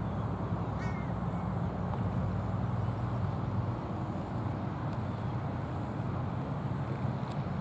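Crows cawing over a steady low rumble, with a thin, steady high whine.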